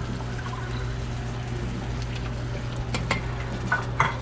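Tomato sauce and sautéed onions sizzling in a black cast-iron pot over the heat, a steady hiss with a low hum underneath. A couple of light clinks come near the end.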